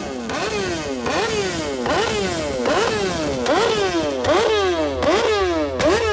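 Sport motorcycle engine revved in quick, repeated throttle blips, about one every three-quarters of a second; each rev shoots up sharply and then winds back down.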